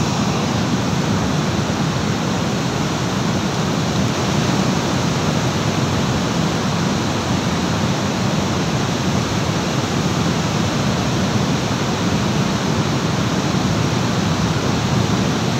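Muddy floodwater rushing steadily through a channel of rocks and boulders, a constant loud rush with no breaks.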